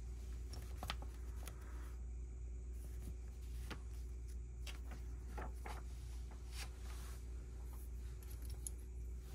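Lego bricks and their packaging being handled: scattered light clicks and rustles over a steady low hum.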